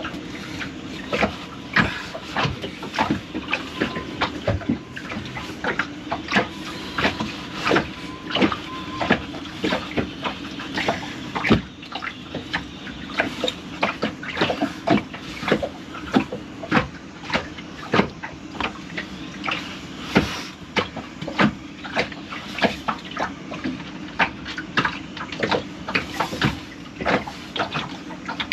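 Irregular small clicks and knocks of hand-held pump parts being fiddled with while a pin is worked into a bilge pump assembly, over a steady low hum.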